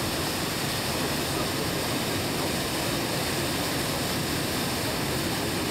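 Steady rushing outdoor background noise at an even level, with no distinct events.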